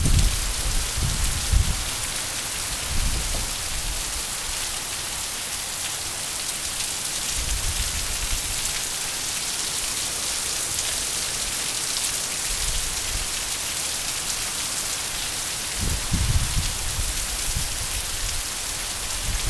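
Heavy rain pouring down in a summer storm, a steady dense hiss. Low rumbles come and go in the first couple of seconds and again near the end.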